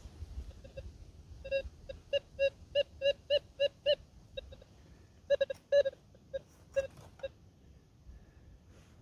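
Minelab Gold Monster metal detector sounding a run of short, quick beeps of one steady pitch as its coil is swept over the dug soil, then a second cluster of beeps a little later: a target signal in the dirt.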